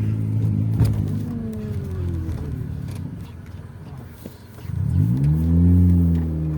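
Car engine running, its pitch easing down as the car slows, then rising sharply about five seconds in as it accelerates and holding steady. A short click about a second in.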